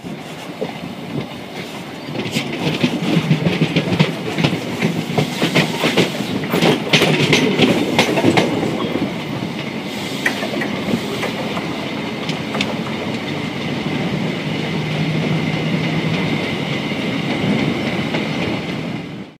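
High Speed Train running at speed, heard from a coach window. Its wheels clatter over junction pointwork with a rush of sharp clicks for the first several seconds, then settle to a steadier rolling rumble.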